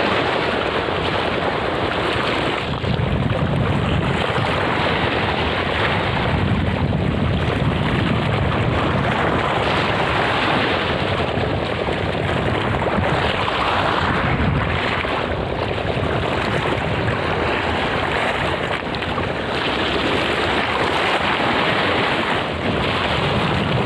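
Steady rush of wind on the microphone mixed with choppy sea water lapping close by, rising and falling gently with no single event standing out.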